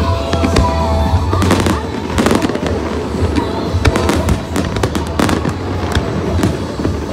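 Fireworks display: a string of sharp bangs and crackling bursts, the heaviest about one and a half to two and a half seconds in and again around five seconds, over music with a steady bass.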